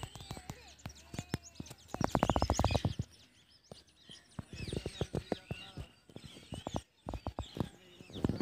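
Small birds chirping over a string of sharp clicks, with a fast run of clicks about two seconds in.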